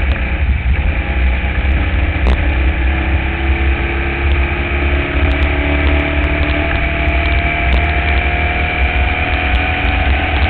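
Formula Vee's air-cooled Volkswagen flat-four engine at racing speed, heard from an onboard camera, its pitch climbing slowly and steadily as the car accelerates. A heavy low rumble sits under the engine note throughout.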